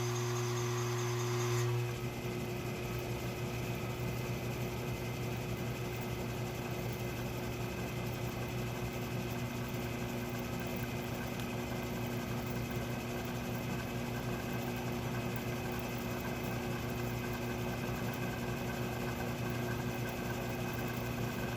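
Myford ML7 metal lathe running steadily with a constant motor hum while a center drill spots the face of a brass disc. A higher whine drops away about two seconds in.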